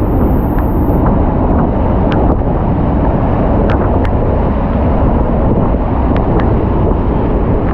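Henrhyd Falls waterfall, a loud steady rush of falling water heard close up, with wind and spray noise on the microphone.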